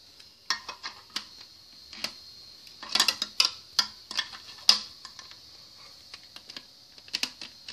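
Hard, irregular clicks and clacks of a marble run toy's small pieces knocking together, thickest in a quick clatter about three to five seconds in.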